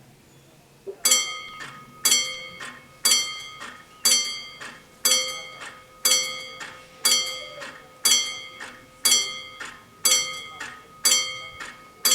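Railway level-crossing warning bells start ringing about a second in, about one strike a second. Each strike is followed by a softer second one, and the ringing dies away between strikes.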